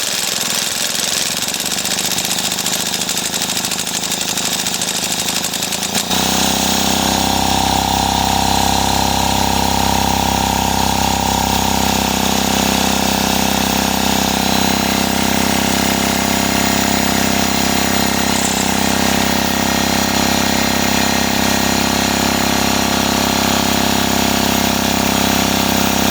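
Cordless drill spinning over an old Homelite chainsaw engine without it firing. It picks up speed about six seconds in and then runs steadily.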